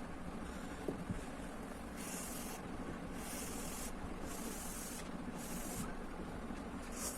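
Food being cooked in a pan on the stove: a steady low hum under short bursts of hissing, about one a second from two seconds in.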